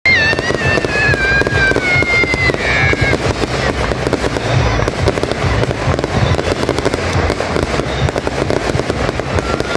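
Aerial fireworks bursting: a steady run of booms and crackling reports from shells exploding overhead. A high whistle slowly falls in pitch during the first three seconds.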